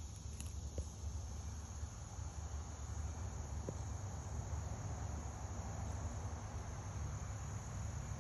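Steady, unbroken high-pitched chorus of insects such as crickets, over a low rumble.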